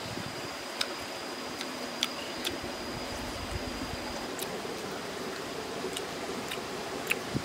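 A person chewing cooked fish with the mouth closed: scattered soft, sharp clicks at irregular intervals over a steady background hiss and a steady high-pitched tone.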